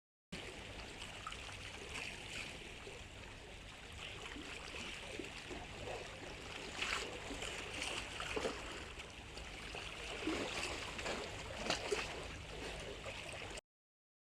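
Faint, muffled underwater sound picked up by a GoPro in its waterproof housing: a steady wash of water noise with scattered small clicks and crackles.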